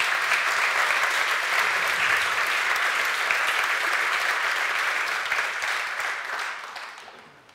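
A large audience applauding, the clapping dying away near the end.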